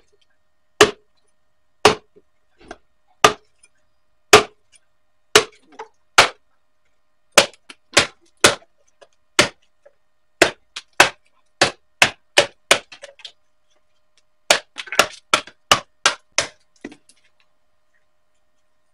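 Competition chopper of ASSAB 88 steel chopping into a hard, thick-walled bamboo stalk resting on a wooden stump: a series of sharp chopping strikes, about one a second at first, then quicker runs of about two a second in the second half, stopping a couple of seconds before the end.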